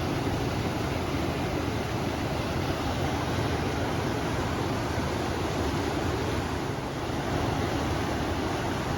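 A river flowing steadily under wind: a constant, even rushing with most of its weight low down.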